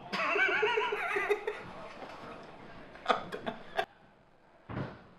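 A man laughing: about a second and a half of giggling, with a few short sharp clicks about three seconds in.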